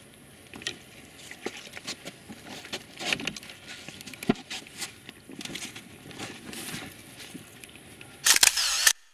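Handling noise: scattered clicks, knocks and rustling as a landed wels catfish is lifted and carried across an inflatable boat, with one sharp knock about four seconds in. Near the end a loud, brief rustling scrape, then the sound cuts off suddenly.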